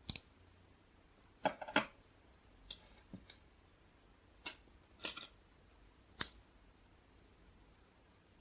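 Plastic LEGO bricks clicking as they are handled and pressed together, about eight separate sharp clicks at uneven intervals, the loudest about six seconds in.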